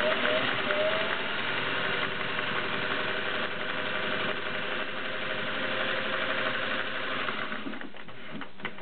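Vintage Singer 403A Slant-o-Matic sewing machine, all-metal and gear-driven with no belt, running steadily as it stitches through fabric, then stopping about eight seconds in. A few light clicks follow near the end.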